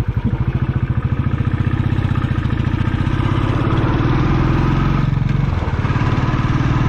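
Motorcycle engine running steadily under way, its rapid even firing pulses heard close up; the engine note dips briefly about five and a half seconds in, then picks up again.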